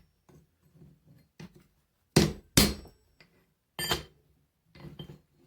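Blacksmith's hammer striking hot mild steel on an anvil while evening the shoulders of a forged axe's folded eye: two sharp blows half a second apart near the middle, another about a second later, with lighter taps between.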